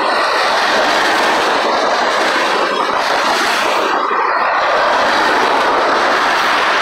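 Freight cars of a manifest train rolling past at close range: a steady, loud rush of steel wheels running on the rails.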